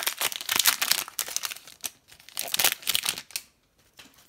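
Plastic wrapper of a hockey trading-card pack crinkling and tearing as it is ripped open and the cards are slid out. A dense run of crackling at first, another burst about two and a half seconds in, then it goes quiet near the end.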